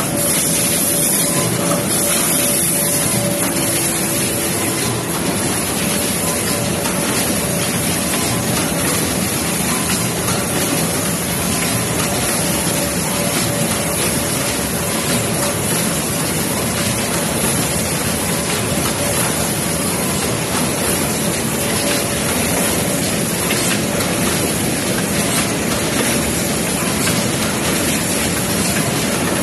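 Rigid box production line machinery running: a steady, loud mechanical din with a constant hiss and a faint steady hum, with no breaks.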